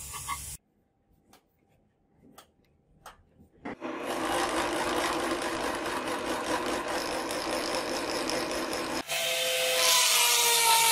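A workpiece spinning in a metal lathe being sanded, a steady rough rubbing that starts about four seconds in after a few seconds of near quiet with faint clicks. About nine seconds in, a rotary tool with a small grinding stone grinds the sword's metal crossguard, louder, its motor whine sagging in pitch under load.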